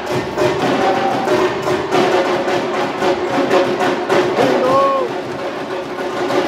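Percussion played in a fast, steady rhythm with voices over it, typical of supporters' drums at a football match.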